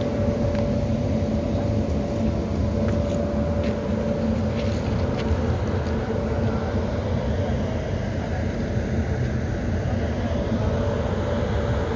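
A steady mechanical hum over a low rumble, from a WAP-7 electric locomotive standing stopped with its machinery running.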